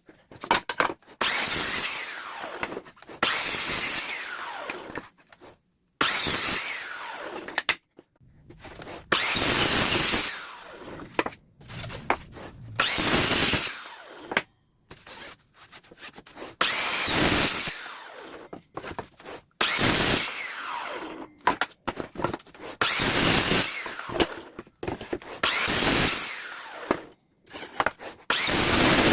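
Ryobi electric miter saw switched on about ten times in a row. Each run starts sharply and lasts a second or two, then the motor's whine falls away as the blade spins down, with short quiet gaps between.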